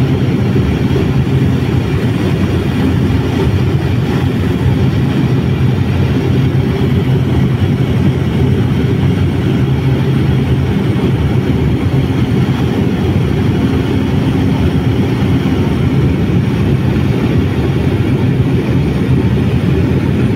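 Aircraft in flight heard from on board: a loud, steady engine drone with a constant low hum.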